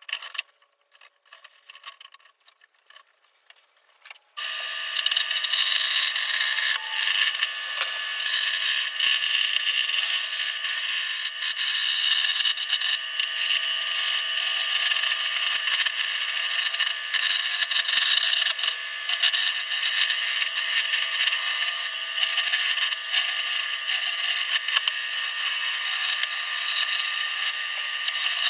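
A wood lathe runs while a turning tool cuts into a spinning blank of glued-up 2x4s, giving a steady scraping hiss over a faint motor hum. The first four seconds or so are nearly quiet, with a few faint clicks, before the cutting sound starts.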